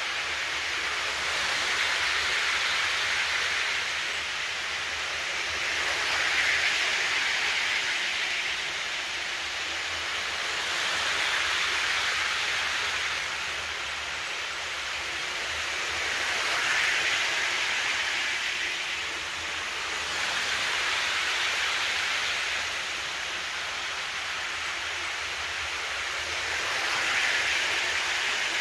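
Model trains running on the layout: a steady rushing of wheels on rails and small motors that swells and fades about every five seconds.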